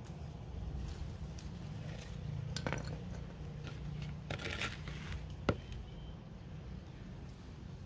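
Hands handling a plant's root ball and a plastic flower pot: soil crumbling and scraping, with a noisier scrape of soil against the pot just past the middle and one sharp click about two-thirds of the way in. A steady low rumble runs underneath.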